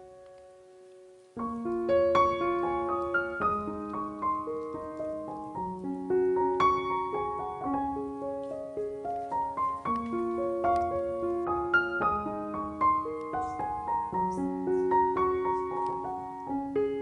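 Background piano music, a gentle melody of single notes over low chords; it dips nearly to silence at the start and comes back in about a second and a half in.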